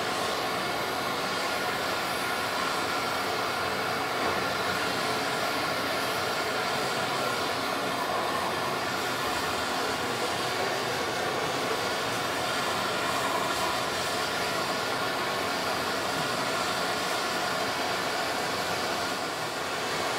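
Hand-held gas torch burning with a steady flame hiss as it preheats an aluminium part before electrode welding.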